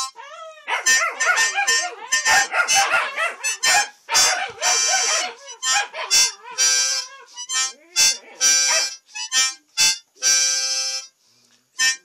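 Harmonica played in short chords while white Swiss shepherd puppies howl along in wavering pitches.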